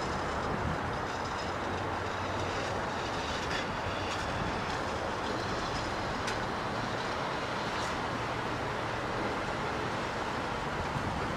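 Electric PCC streetcar rolling slowly around a curve toward the listener: a steady rumble of steel wheels on rail, with a faint high squeal in the first few seconds and a few sharp clicks from the wheels over the track.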